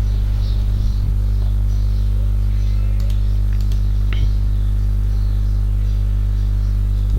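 Steady electrical mains hum at about 50 Hz with a buzzing stack of overtones, picked up by the recording microphone. A few faint clicks come about three to four seconds in.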